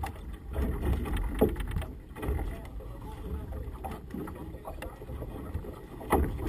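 Gusty wind buffeting the microphone in uneven surges, with signal flags flapping and snapping in the wind.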